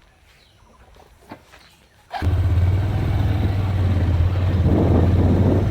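A few faint clicks in near quiet, then about two seconds in an engine comes in abruptly and runs steadily with a strong low hum.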